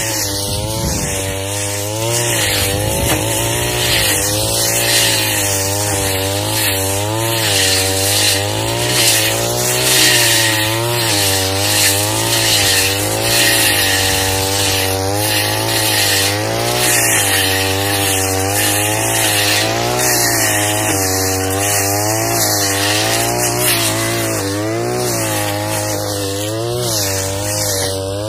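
Backpack brush cutter (Tanika 338) running at high revs while its blade cuts thick grass and weeds. The engine pitch dips and recovers over and over as the blade bites into the growth.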